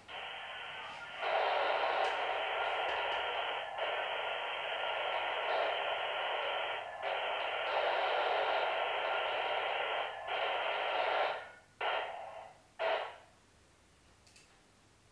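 VARA HF modem data signal carrying a Winlink exchange over walkie-talkie audio: a dense, hissy band of many steady tones, sent in blocks of about three seconds with brief gaps. Near the end come two short bursts, then it stops.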